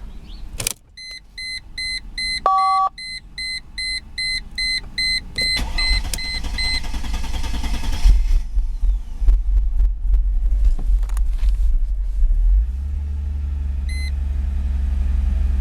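Mercedes W210 dashboard warning chime beeping rapidly, then the starter cranking the engine for about seven seconds before it catches and settles into a steady idle. The long crank comes from the fuel system having no pressure yet after a new fuel pump and fuel filter were fitted.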